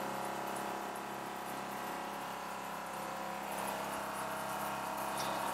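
Steady hum and hiss of a shower system in use: an RV water pump running and water spraying from the shower head, fed through a Joolca Hottap gas water heater with its burner lit.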